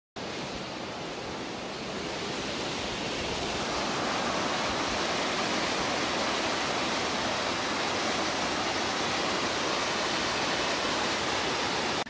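Mountain stream water rushing over rocks in a small waterfall, a steady even rush that grows a little louder a few seconds in.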